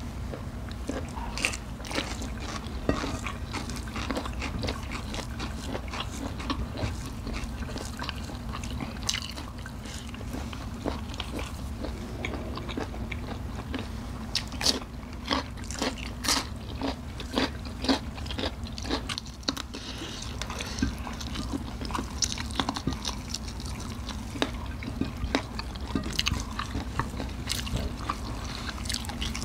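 Close-miked eating: crisp crunching and chewing as raw vegetables are bitten, with soft clicks of fingers working rice on the plates, over a steady low hum.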